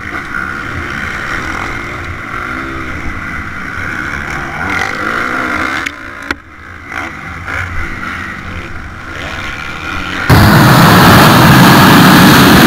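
Motocross bike engine running hard under racing load, heard from the rider's helmet camera with wind on the microphone, the revs rising and falling with the throttle and shifts. About ten seconds in it gives way abruptly to a much louder, rushing noise.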